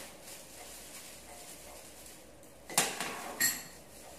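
A strainer set down on a kitchen counter: two quick knocks about half a second apart, the second with a brief ringing.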